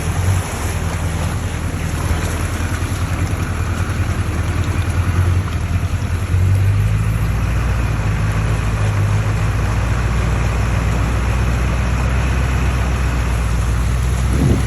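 A motor vehicle's engine running steadily through flood water in heavy rain, with a constant wash of rain and splashing water. About six seconds in, the engine note gets louder and deeper.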